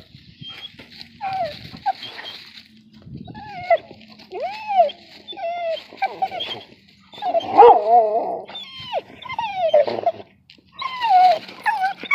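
A dog whining and yipping excitedly at a cat treed above it, in a string of short high calls that rise and fall in pitch, loudest about seven to eight seconds in.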